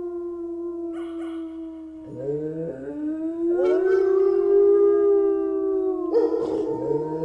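Wolves howling. A single long howl slowly falls in pitch, then about two seconds in more howls join and overlap in a chorus, several of them rising.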